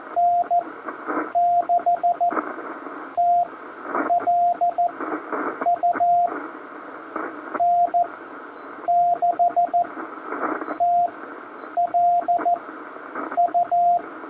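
Morse code from a Ten-Tec Argonaut 5 QRP transceiver: a steady mid-pitched tone keyed in dits and dahs, in irregular groups, over a loud hiss of band noise that swells between the groups. This is a weak CW contact being exchanged through heavy noise. Faint high clicks accompany the keying.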